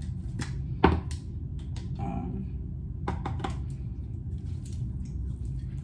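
Coconut oil moisturizing cream being handled and rubbed onto skin: scattered sharp clicks and taps, the loudest about a second in and a small cluster a little after three seconds, over a steady low room hum.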